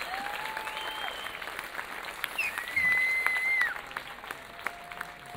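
Concert audience applauding and cheering, with held whoops and whistles rising above the clapping. The applause peaks a few seconds in and then thins out.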